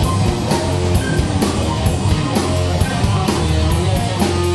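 Live rock band playing an instrumental passage between sung lines: electric guitar and bass over a drum kit keeping a steady beat with cymbal hits.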